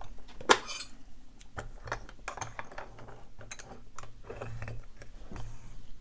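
Metal clinks and knocks as a Mauer euro profile lock cylinder is handled and clamped into a small bench vise, with one sharp clink about half a second in and scattered lighter taps after it.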